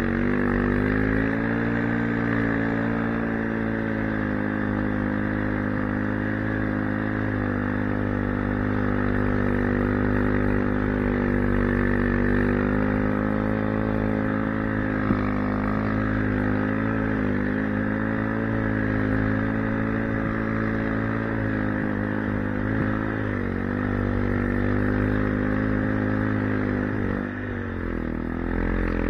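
Timbersled snow bike's dirt-bike engine running under steady throttle while riding, its pitch wavering slightly. Near the end the engine note dips as the throttle eases off, then picks back up.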